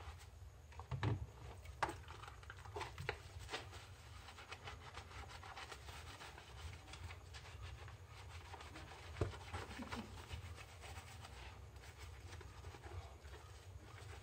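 Sponge scrubbing a smartphone in soapy water: irregular wet rubbing strokes, with a few sharp clicks, the loudest about a second in and about nine seconds in, over a steady low hum.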